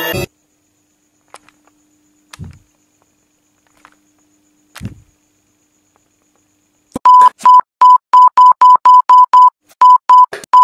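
Music cuts off at the start. Then near silence with two soft thumps, and from about seven seconds in, a loud run of short, high electronic beeps, about two to three a second.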